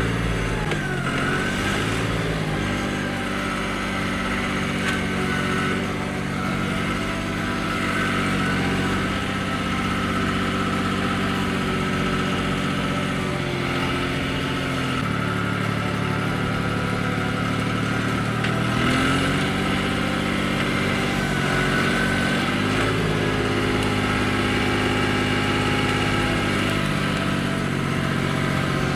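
Engine of the machine working a log grapple running steadily, its speed stepping up and down a few times as it works.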